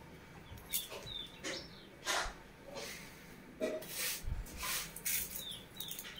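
Soft rustling and handling sounds of cloth and rice, with a few short, high, falling chirps of small birds.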